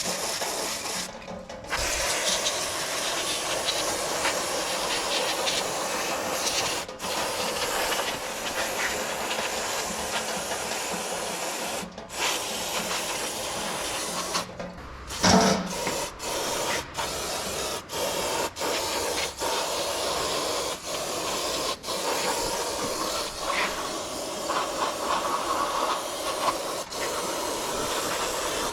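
Aerosol brake parts cleaner spraying in long hissing bursts onto a brake disc rotor, cut by brief pauses in the second half as the nozzle is released and pressed again. A single louder knock about halfway.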